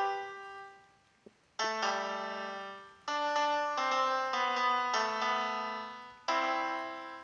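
Background piano music: slow chords and notes that ring and fade, with a short pause about a second in before the playing resumes.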